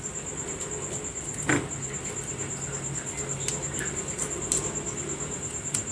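Scattered small scrapes and clicks from peeling a kencur (aromatic ginger) root by hand, with one louder scrape about a second and a half in, over a steady low hum.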